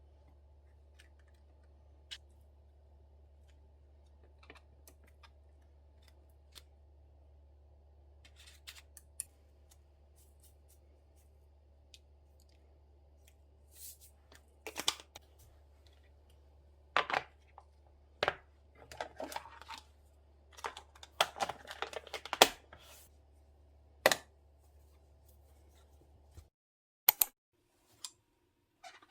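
Kitchen food-prep handling: scattered clicks, taps and short rustles of utensils and packaging over a steady low hum, busiest in the second half. The hum cuts off near the end.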